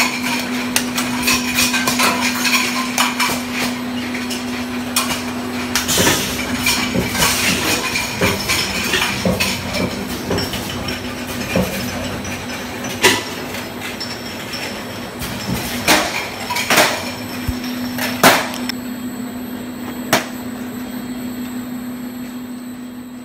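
Glass-bottle liquid filling and capping machine running: a steady motor hum under rapid clicking and clinking of glass jars and metal parts on the conveyor. The hum drops away for a few seconds midway, and several sharp knocks stand out in the second half.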